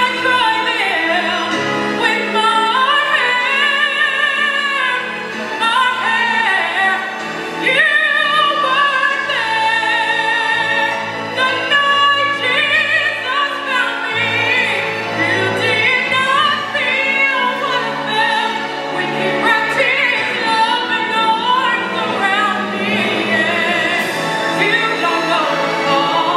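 A woman singing a gospel song solo into a microphone through a PA, with long held, wavering notes, over recorded backing music.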